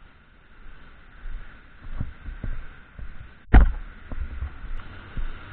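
Low thumps about twice a second on a body-worn camera's microphone, the jolt of the wearer's footsteps as he walks, with one sharp knock about three and a half seconds in over a faint steady hiss.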